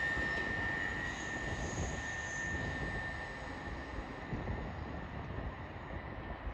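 A train rumbling away along the tracks, its sound slowly fading, with a thin high wheel squeal dying out in the first couple of seconds.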